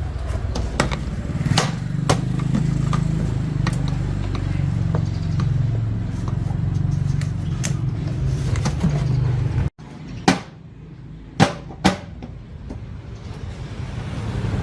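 A steady low mechanical hum with scattered clicks and knocks, which cuts off abruptly about ten seconds in. Then three sharp taps over a quieter background.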